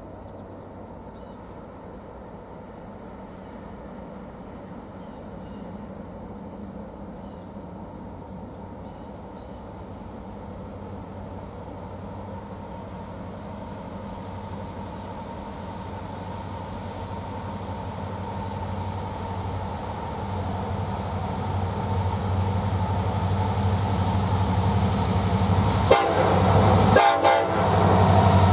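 Two EMD SD70M-2 diesel locomotives, 16-cylinder two-stroke engines, approaching in high throttle, their drone growing steadily louder. A horn sounds near the end as the locomotives arrive.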